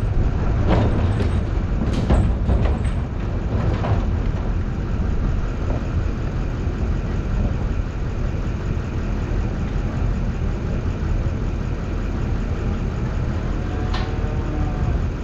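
Vehicle engine running with a steady low rumble, with a few short knocks and rattles in the first four seconds and a click near the end.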